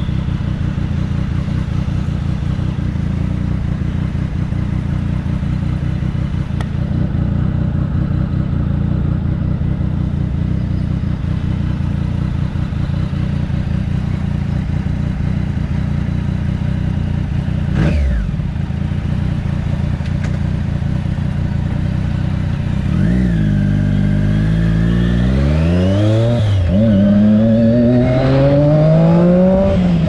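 Triumph Daytona 675's inline-three engine with an Arrow aftermarket exhaust idling steadily at a standstill, then pulling away near the end, its pitch rising through the revs, dropping at a gear change and rising again.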